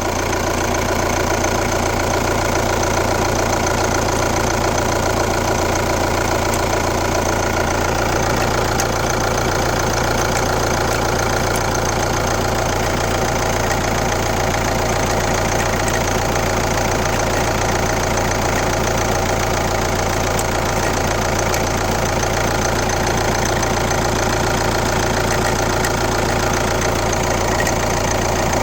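Kia Ceed's 1.6 CRDi D4FB four-cylinder common-rail diesel running at a steady speed, making a weird noise that the owner has not identified.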